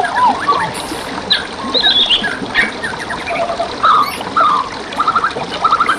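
Several songbirds singing, with varied chirps and whistles and, from about five seconds in, a series of quick trills of short repeated notes. Under them runs a steady trickle of flowing water.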